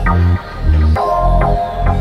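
Electronic background music with a steady, repeating bass beat and sustained synth chords.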